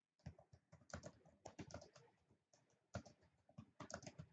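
Faint typing on a laptop keyboard: irregular clusters of quick key clicks with short pauses between them.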